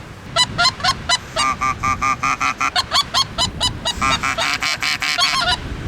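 Geese calling: a rapid, overlapping run of high, yelping honks, several birds at once, over a low rumble of strong wind.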